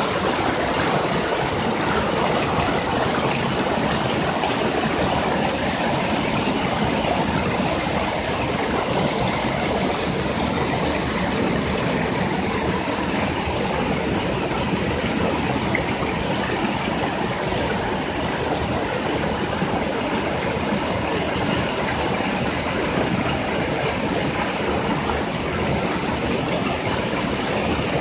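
A mountain stream cascading over rocks and a small waterfall pouring into a pool: a steady, unbroken rush of water.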